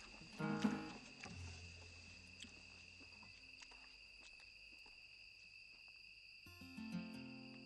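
Crickets chirring steadily as a high, even background. A short pitched sound stands out about half a second in, and soft sustained music notes come in near the end.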